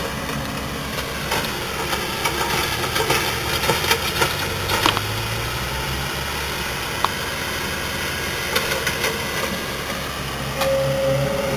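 A steady low rumble with irregular clicks and knocks through it, and a short higher tone near the end: the strange noise heard through a slightly open window.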